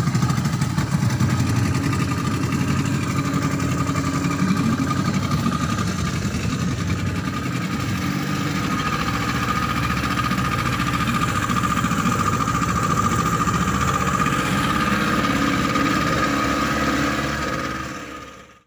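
Yamaha Enduro two-stroke outboard motors running steadily, driving the boat along with a constant engine note; the sound fades out near the end.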